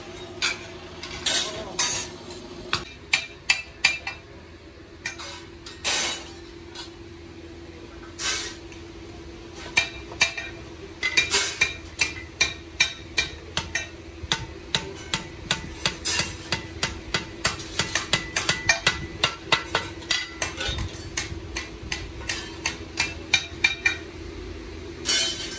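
Hammer strikes on metal at a small anvil, in quick runs of several light blows with short pauses, as wooden handles are fitted onto brick trowels. A steady hum runs underneath.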